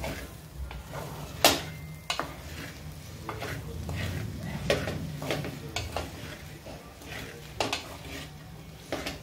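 A utensil scraping and knocking against a pan as grated fresh coconut is stirred while roasting in ghee, with a light sizzle underneath; the roasting is to dry out the coconut's moisture. The scrapes come irregularly, about eight of them, the sharpest about a second and a half in.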